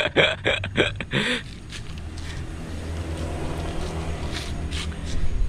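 Car engine running steadily at idle, a low even hum, with a few faint clicks of hands and tools working over it.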